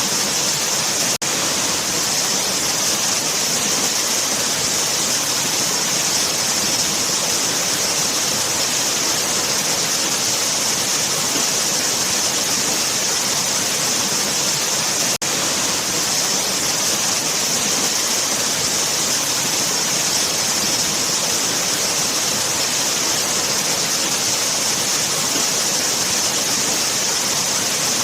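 Waterfall: a steady rush of falling water, a dense hiss with no pitch, brightest in the upper range. The sound drops out for an instant about a second in and again about halfway through.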